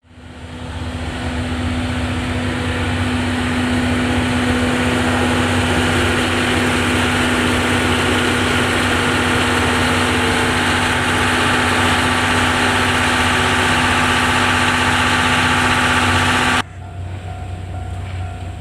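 Steam locomotive C57 180 standing close by during shunting: a loud, steady hiss and hum with a held tone, which cuts off abruptly near the end and leaves a quieter rumble.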